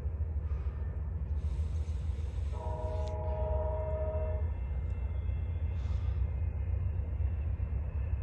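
Approaching train's locomotive horn sounding one blast of about two seconds, a chord of several tones, starting about two and a half seconds in, over a steady low rumble.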